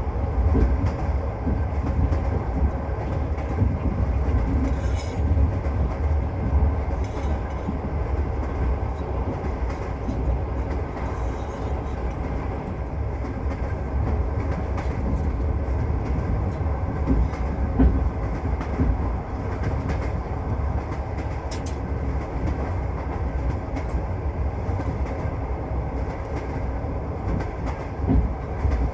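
Passenger train rolling along, its wheels clacking over rail joints with a steady low rumble, heard from inside the carriage.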